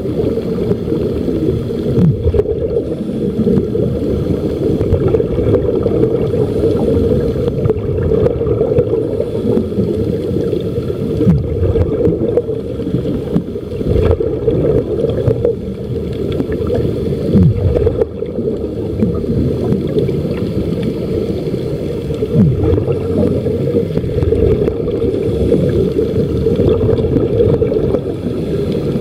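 Muffled underwater noise picked up by a submerged camera: a steady, dense low rumble, with a short falling tone every few seconds.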